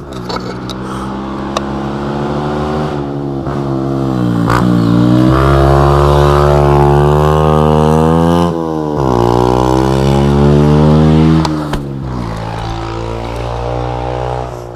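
Beta RR 125 LC motorcycle engine through a GPR aftermarket exhaust, revving up under load: the pitch climbs, drops sharply twice as it comes off the throttle or shifts, climbs again, then falls away near the end.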